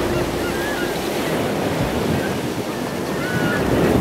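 Ocean surf washing steadily onto a beach, with a few short chirping calls heard over it.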